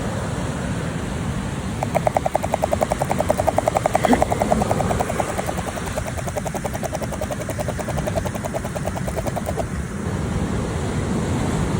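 Fishing reel winding in a hooked shad, with a rapid, even clicking from about two seconds in until near the end, over the steady rumble of surf and wind.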